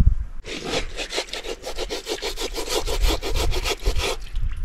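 Rapid rhythmic back-and-forth scraping strokes, many a second, starting about half a second in and stopping shortly before the end.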